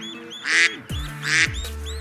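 Duck quacking twice, two short rasping quacks under a second apart, over background music.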